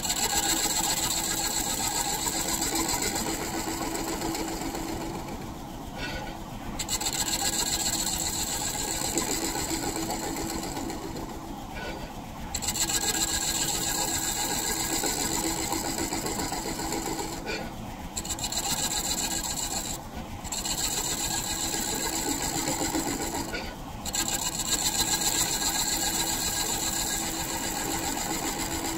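Large scraper cutting the face of a spinning maple disc on a wood lathe: a steady rasping scrape over the lathe's steady hum. The scrape breaks off briefly five times, a few seconds apart, as the tool comes off the wood.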